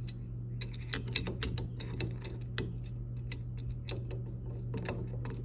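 Irregular sharp metallic clicks and ticks from hand tools tightening the cap of a steering rack's backlash adjuster down onto its shims, over a steady low hum.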